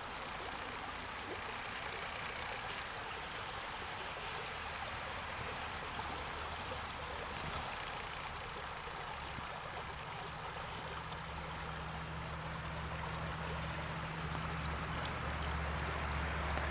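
Steady rush of flowing stream water, with a low steady hum that grows louder through the second half.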